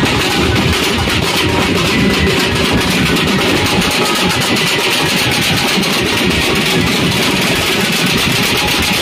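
Loud procession drum band: several large double-headed drums beaten with sticks in a fast, dense, continuous rhythm.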